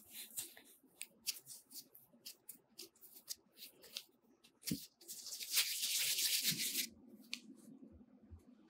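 Hands pinching and folding a piece of soft bread dough, a run of short soft ticks, then rounding the dough against a floured countertop in a dry rubbing that is loudest for about two seconds past the middle.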